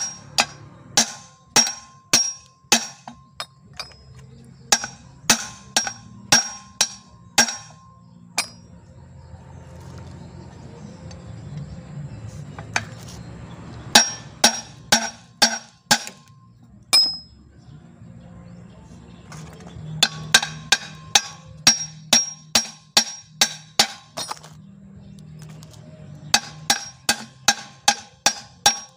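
Hammer striking the steel yoke of a Toyota Kijang propeller shaft in quick, ringing metal blows, about two to three a second, to drive out the worn cross joint (universal joint). The blows come in runs, with a pause of several seconds about a third of the way in and shorter breaks later.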